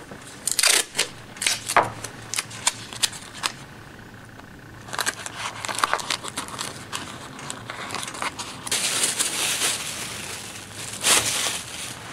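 Plastic sheeting and tissue paper crinkling and rustling under hands as they are packed around a skull mold, in irregular bursts with sharp crackles.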